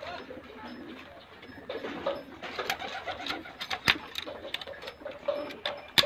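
Domestic pigeons cooing in a wire-mesh cage, with sharp metal clicks and rattles from the cage door latch being worked. The loudest click comes a little before the fourth second.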